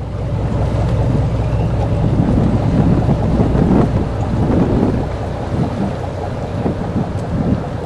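Twin-diesel aluminum speedboat running at high speed. Heavy wind buffets the microphone over a loud, rumbling mix of engine and water noise.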